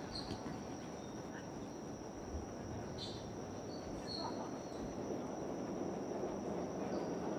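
Outdoor ambience: a steady high-pitched tone like an insect trill over a low rumble, with a few faint short high chirps now and then.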